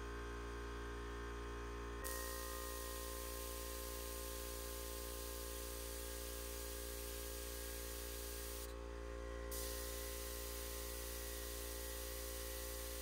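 Vacuum fluid extractor hissing steadily as it sucks engine coolant out through a pipe pushed into the radiator filler, over a steady hum. The hiss starts about two seconds in and drops out briefly about nine seconds in.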